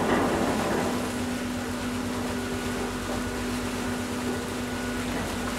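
Steady droning hum of a river passenger ship's machinery as the vessel moves slowly alongside, with one constant low tone and fainter tones above it. There is a brief louder rush of noise at the very start.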